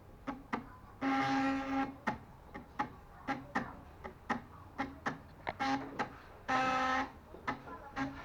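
Stepper motors of a homemade mini CNC making short moves while running a PCB job: a string of clicks and brief pitched buzzes, with two longer buzzing moves, one about a second in and one about two-thirds of the way through.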